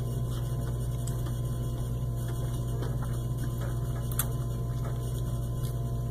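Steady low electrical hum, with a few faint short crunches from chewing a crispy chocolate peanut-butter protein bar.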